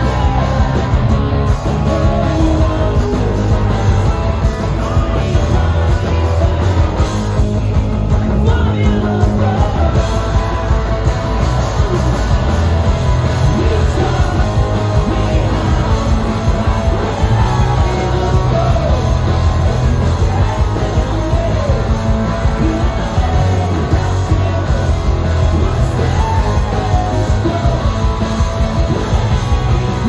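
Live amplified rock band playing a song: distorted electric guitars, drums and keyboard, with a man singing lead vocals over them.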